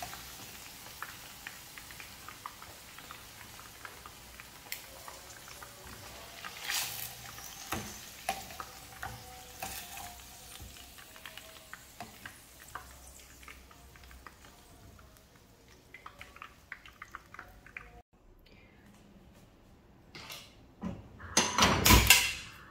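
Cornflour-coated chicken pieces frying in hot oil in a frying pan: a soft sizzle with scattered crackles that fades away, as the pieces are lifted out with a slotted spoon. Near the end, a loud clatter of a steel pot on the gas stove.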